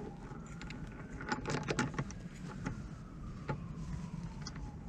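Light metal clicks and taps from a rod holder's rail-mount clamp and its screws being handled and fitted against a boat rail. There is a cluster of clicks about a second and a half in and a couple more later, over a faint background hum.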